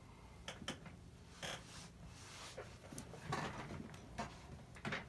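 Faint scattered clicks and rustles, a handful of short separate sounds.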